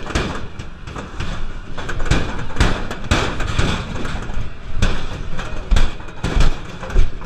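Irregular metallic clanks and thumps as people move quickly along a metal-railed fairground walkway, over a steady noisy background.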